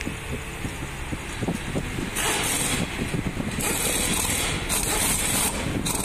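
Pneumatic impact wrench run in short bursts, each with a hiss of air, loosening the gearbox-to-engine (bell-housing) bolts. There is some metal clinking as the socket is fitted, then three bursts about a second apart, and a fourth begins near the end.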